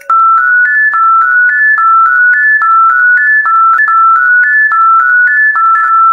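Simple electronic keyboard melody of clean high single notes: a short rising three-note figure repeated over and over at an even pace.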